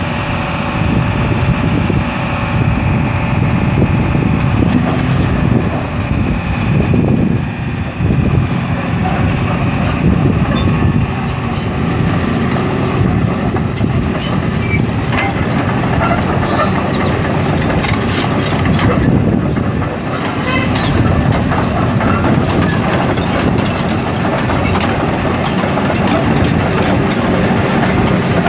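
Volvo EC240BL C excavator's six-cylinder turbo diesel engine running steadily. From about halfway, its steel track pads clank and squeak as the machine travels.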